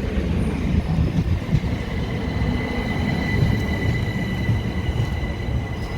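Southern Class 377 Electrostar electric multiple unit pulling into the platform: a steady low rumble of the train, joined about two seconds in by a steady high-pitched squeal from the wheels or brakes as it comes in to stop.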